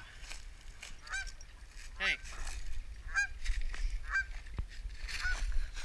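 Geese honking: a series of short honks, about one a second.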